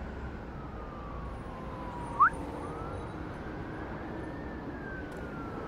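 Distant siren wailing slowly down, up and down again over a steady low rumble of traffic. About two seconds in comes one short, sharp rising chirp.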